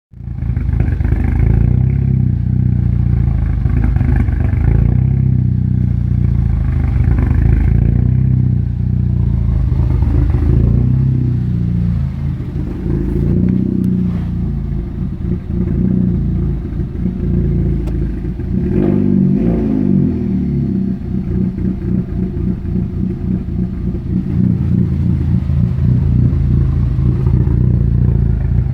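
Vehicle engine idling roughly, its speed and loudness wavering unevenly instead of holding steady, with a brief surge and dip about two-thirds of the way through.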